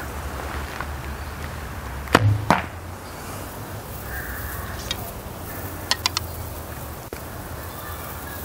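An arrow shot from a 55-pound Grizzly recurve bow strikes a hanging carpet backstop: two sharp sounds about a third of a second apart, the release and then the impact thud. Three quick clicks follow near six seconds in.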